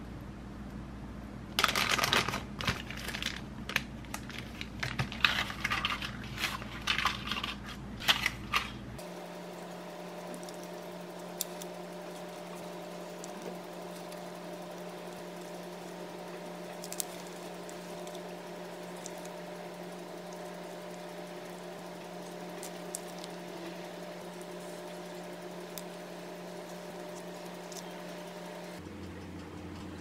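Disposable plastic piping bag crinkling and rustling in irregular bursts for several seconds as batter is scraped into it and the bag is handled, then a steady background hum with a few faint ticks.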